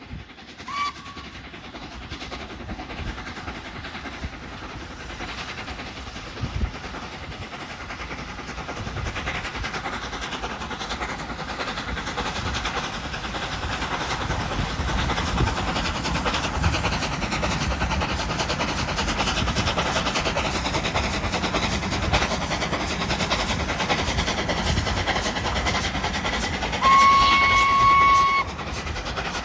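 LNER A3 Pacific steam locomotive Flying Scotsman approaching with its train; the rumble of the engine working and the wheels on the rails grows steadily louder. A short whistle toot sounds about a second in, and a longer steady whistle blast near the end is the loudest sound.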